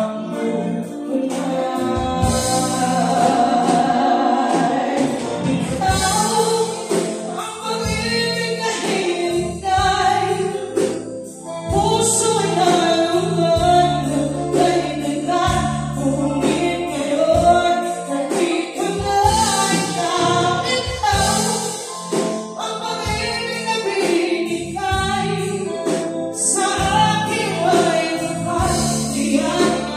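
Live band playing a song with female lead vocals over electric guitar and drums, amplified through the PA.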